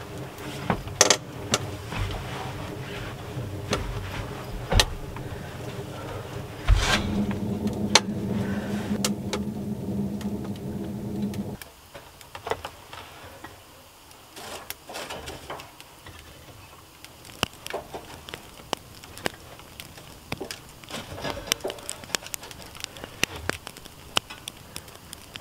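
A steady mechanical hum that cuts off suddenly about halfway through, then a small wood-burning stove's fire crackling with scattered sharp clicks and ticks.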